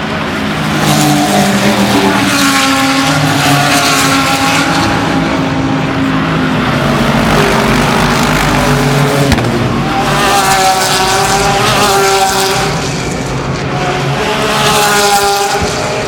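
Closed-cockpit sports racing cars passing at speed, several engines running hard with their pitch shifting as each car goes by. They come in three waves: about a second in, around ten seconds, and near the end.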